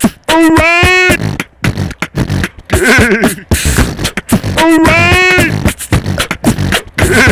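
Beatbox loop running on a Korg Kaossilator 2 phrase looper: mouth-made drum hits under a pitched line that bends and rises. The whole pattern comes round again about every four seconds.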